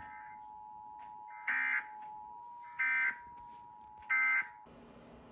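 Emergency Alert System SAME end-of-message data code: three short bursts of warbling two-tone digital data, about one and a half seconds apart, marking the end of the tornado warning message. A faint steady tone runs underneath and cuts off just after the third burst.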